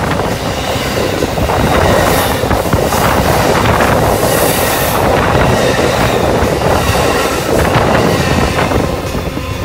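Amtrak double-deck passenger cars rolling past at arm's length: a loud, steady rumble of wheels on rail with clickety-clack from the rail joints.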